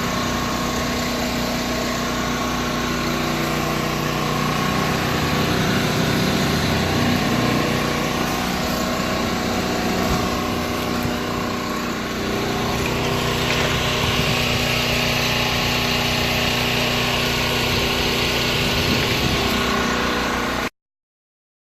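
An engine running steadily for about twenty seconds, then cutting off suddenly.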